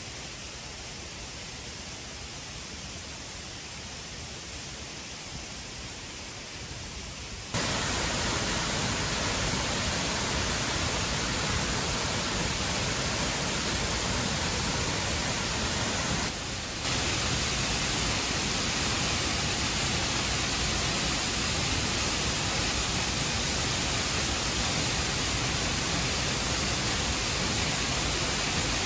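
Waterfall: a steady rush of falling water. It is fainter at first, jumps suddenly much louder about a quarter of the way in, and dips briefly in the middle.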